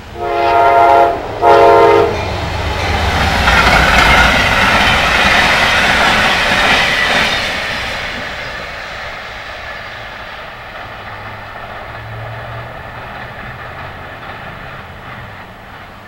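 Amtrak P42DC Genesis diesel locomotive's five-chime K5LA horn sounding two short blasts, then the train passing with wheel and rail noise that fades away.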